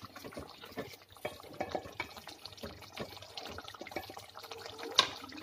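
Thick curry gravy being stirred in an aluminium pot: wet sloshing with scattered small scrapes and clinks of the stirring utensil against the pot, and one sharp knock about five seconds in.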